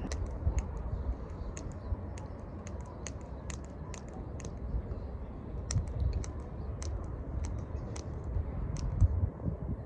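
Irregular small clicks and crackles from hands handling small items close to the microphone, a few each second. Underneath, wind rumbles on the microphone.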